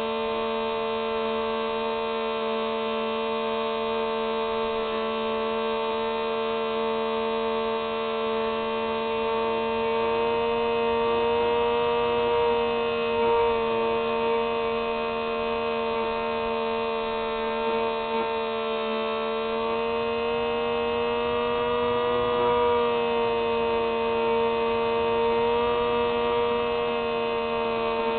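Electric motor and propeller of a Hubsan H301F Spy Hawk RC plane running in flight, a steady whine heard through the plane's onboard camera, its pitch wavering slightly a few times as the throttle changes.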